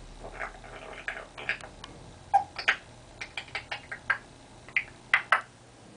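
Parrot making a run of short clicks, chirps and squeaks, softer for the first two seconds, then sharper and louder, stopping about half a second before the end.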